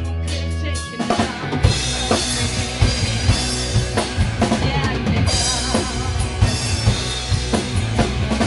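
Rock band playing live: a held electric guitar chord, then the drum kit comes in about a second in with kick and snare hits over the guitars.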